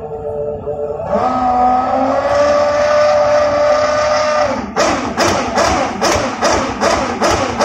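Red Bull Formula 1 car's engine revved up and held at a steady high pitch for about three seconds. It is framed by sharp rhythmic thumps about three a second before it and after it.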